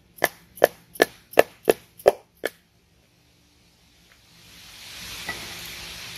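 About seven sharp taps in quick succession, roughly three a second, driving a new crankshaft oil seal down into its bore on a small mower engine. They stop about two and a half seconds in, and a steady hiss rises after about four seconds.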